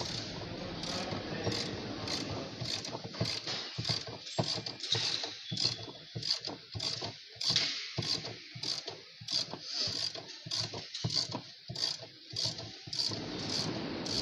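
Hand tool working on a washing machine's fasteners: a steady run of ratcheting clicks, about two a second.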